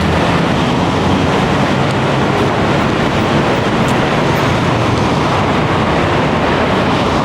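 Loud, steady noise of vehicles passing on a busy city street, with no single distinct sound standing out.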